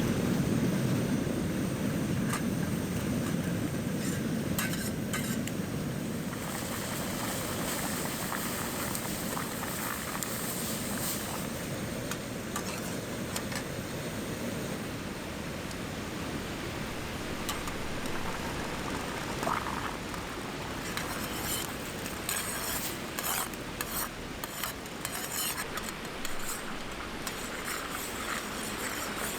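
Campfire cooking sounds: a steady sizzling hiss with clinks and scrapes of utensils on cookware, the clinks busier over the last several seconds.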